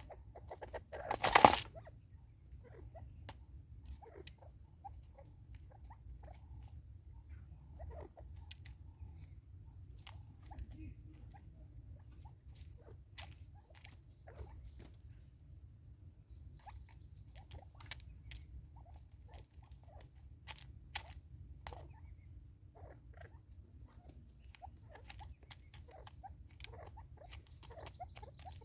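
Natal spurfowl pecking and scratching at food, making many light, irregular taps and clicks. A single loud, sharp sound comes about a second in.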